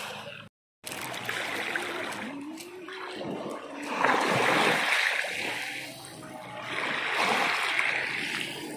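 Small waves washing up over a pebble shore with foam, a rushing wash that surges and falls back. It swells loudest about four seconds in and again about seven seconds in.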